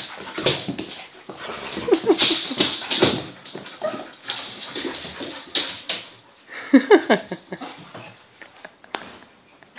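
Two dogs play-fighting, a small long-haired dog and a larger short-haired one, making short vocal noises in irregular bursts that fade near the end.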